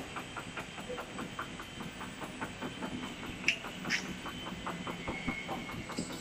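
Web slitting and rewinding machine running, its rollers and winding shafts giving a steady mechanical noise with an even clicking about five times a second. Two sharper clicks come about three and a half seconds in.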